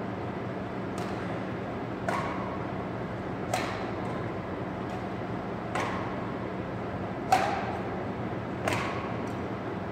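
Badminton racquets striking a shuttlecock back and forth in a rally: six sharp hits a second or two apart, the loudest near the end, each echoing in a large gym. A steady low hum runs underneath.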